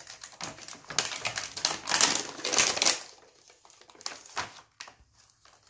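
Plastic toy pieces and packaging being handled and rummaged through: a rapid clatter of small clicks and crinkling for about three seconds, then a few scattered clicks.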